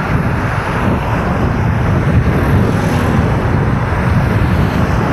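Steady wind rumble on the microphone of a camera riding along on a moving bicycle, with road traffic mixed in.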